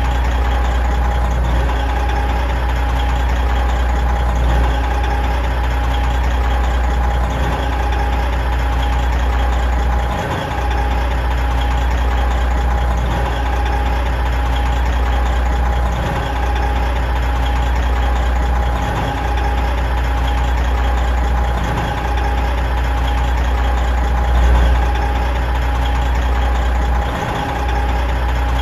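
Big truck diesel engine idling steadily: a deep, even rumble with a steady higher tone riding above it, dipping briefly a few times.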